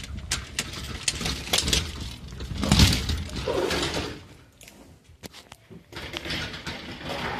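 Someone coming in through a sliding glass entrance door: keys jangle, the door rattles and slides, and a string of clicks and knocks follows as they walk along a wooden hallway, with louder scraping bursts about three seconds in and near the end.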